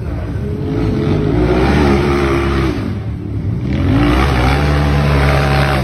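Off-road buggy engine revving hard on a steep dirt hill climb: the revs climb and hold, drop about three seconds in, then climb and hold again.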